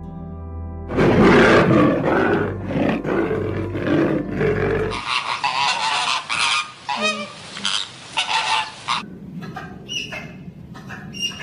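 A string of different animal calls from several recordings cut one after another, changing abruptly about a second in, about five seconds in and again near nine seconds.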